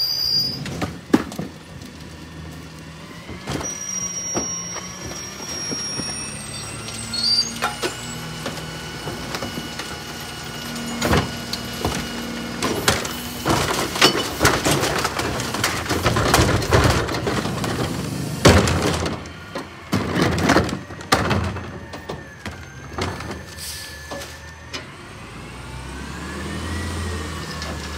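Autocar ACX McNeilus rear loader garbage truck idling while trash carts and bags are emptied into its rear hopper by hand: repeated bangs and thuds of plastic carts and bags hitting the hopper, thickest in the middle. Near the end the engine speeds up with a rising whine.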